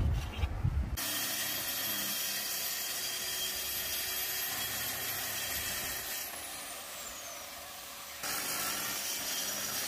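Wind buffeting the microphone for about the first second, then a DeWalt plunge track saw and its dust extractor running while the saw cuts a sheet of MDF along its guide rail. About six seconds in the sound drops and a whine falls in pitch as the saw winds down. Near the end the machine noise comes back abruptly.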